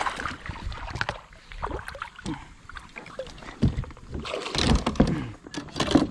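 Knocks, bumps and scrapes on a plastic fishing kayak, with water sloshing against the hull while a hooked fish is brought alongside. The knocks come irregularly and grow busier and louder in the second half.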